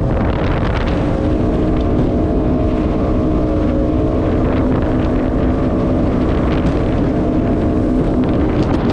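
Jet ski engine running steadily at speed, its pitch holding level, with wind rushing over the microphone.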